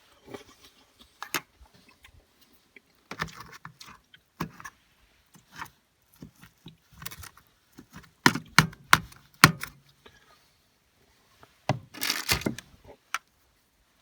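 Scattered clinks, knocks and scrapes of cookware being handled, likely a utensil working in a frying pan of gravy. The loudest run of knocks comes about eight seconds in, and another cluster about twelve seconds in.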